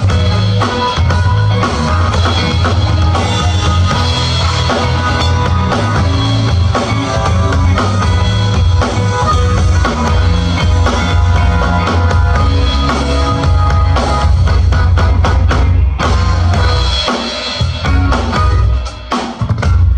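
Live band playing an instrumental passage of a pop song, with a drum kit and a heavy bass line under keys or guitar. About a second before the end the music thins to mostly drum hits.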